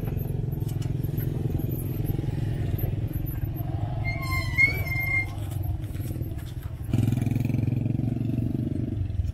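A motorcycle engine idling close by, which runs louder for about two seconds starting around seven seconds in. A brief high-pitched tone sounds near the middle.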